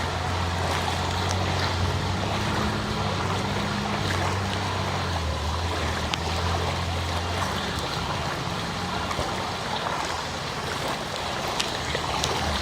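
A vehicle engine running with a low, steady hum that changes pitch about five seconds in and stops after about seven and a half seconds, over a continuous wash of water noise from the flooded street.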